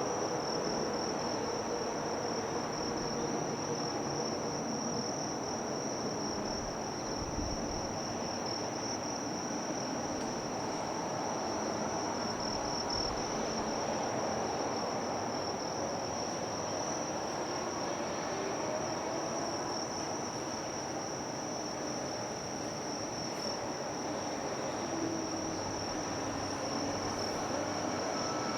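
Steady, high-pitched shrill of chirping insects, an unbroken pulsing trill, over a low even background hum.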